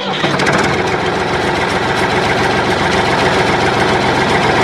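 Tractor engine idling steadily, a continuous even running sound.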